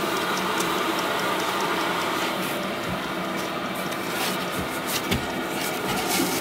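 Chinese 5 kW diesel parking heater running steadily: the even whir of its blower and burner, with scattered clicks and a few dull knocks.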